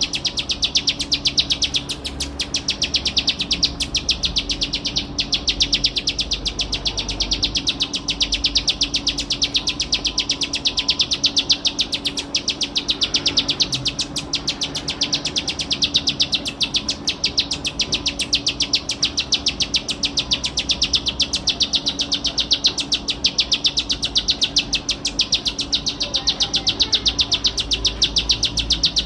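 Plain prinia (ciblek sawah) singing a continuous, very fast run of high repeated notes, with no pause.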